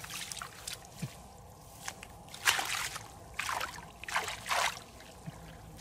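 Hands groping through shallow muddy paddy water, making a run of irregular splashes and sloshes. The loudest comes about two and a half seconds in, and a few more follow close together near the middle.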